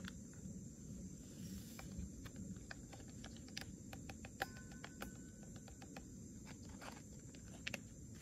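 Small paper sachet crinkling and rustling as it is torn open and its contents shaken into a stainless steel tumbler, heard as a faint scatter of small clicks. About halfway through there is a light tap with a brief ring.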